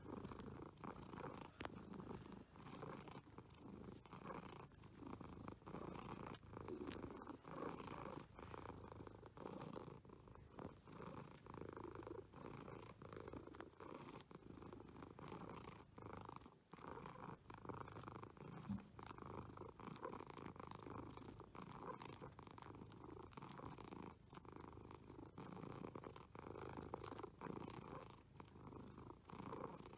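A sleeping cat snoring: a continuous rough rumble that swells and eases with each breath.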